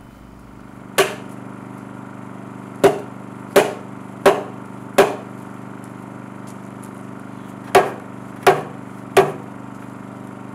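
Dead blow hammer striking the edge of two ash slabs, driving their pegged joint together: eight sharp knocks, one on its own, then a run of four and a run of three, each about three quarters of a second apart. The tone of the knocks is what tells when the two sections are fully seated.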